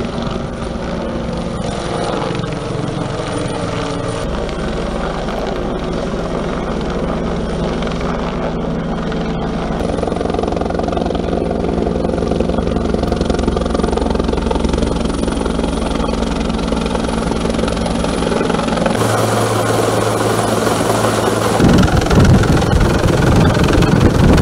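Firefighting helicopter with a water bucket slung beneath it flying overhead, its rotor and engine running steadily and getting louder near the end. The sound changes abruptly a few times as the shots cut.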